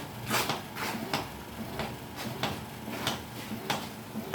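A series of sharp knocks and clunks in a rough, uneven rhythm, about one every two-thirds of a second, over a steady background.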